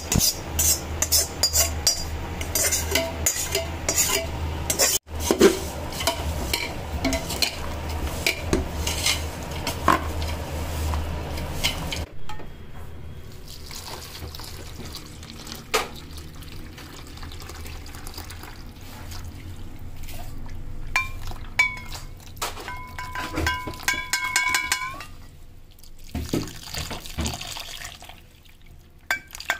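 Metal utensil clinking and scraping against a steel pot of ground dry fruit, over a steady low hum. About twelve seconds in, the clatter gives way to quieter sounds, with a faint held high tone a little after twenty seconds.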